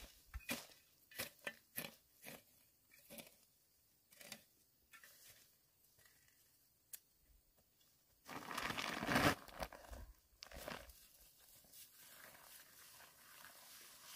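A long-handled hoe chopping into dry, weedy soil, a sharp crunching strike about twice a second for the first few seconds. About two thirds of the way through there is a longer, louder rustling and crinkling noise.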